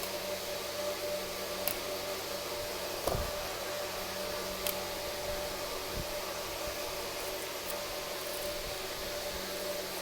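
Steady background hum and hiss with a few light clicks, one with a soft thump about three seconds in.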